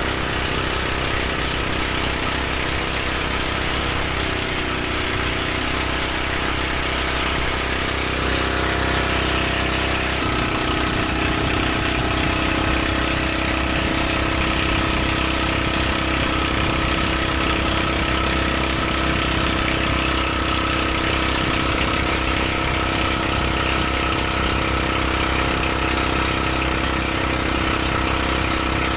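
Inboard engine of a motorized outrigger boat (bangka) running steadily, heard from on board with hiss of water and wind; its tone shifts slightly about ten seconds in.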